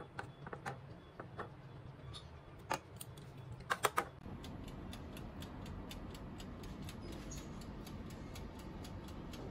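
A metal spoon clinks and scrapes on an aluminium loaf pan as thick cake batter is spread in it. Three sharp clinks close together come just before the sound changes. Then an oven runs with a steady hum and a regular tick, about three ticks a second.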